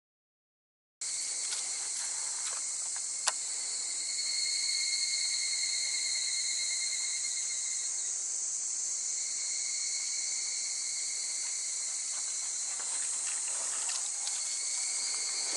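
A steady chorus of insects, several shrill bands held constant, starting after about a second of silence. One sharp click comes about three seconds in.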